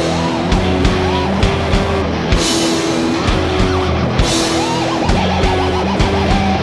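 A rock band playing heavy metal live: electric guitars, bass and a drum kit with regular drum hits and cymbal crashes. About five seconds in, a lead guitar line with fast, wavering notes rises over the band.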